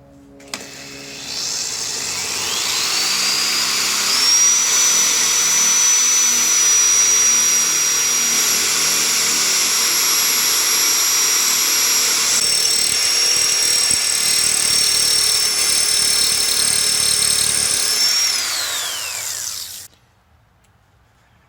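Electric drill fitted with a masonry bit, drilling a mounting hole. Its motor whine rises as it spins up, holds steady for about fifteen seconds, then falls away as it winds down near the end.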